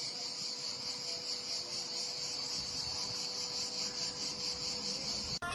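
A steady, high-pitched chirring of insects, cut off suddenly near the end.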